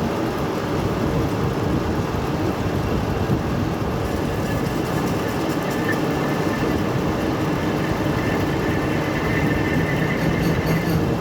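Metal lathe running steadily while a turning tool cuts a fillet on the end of a spinning workpiece. A faint high whine joins about eight seconds in.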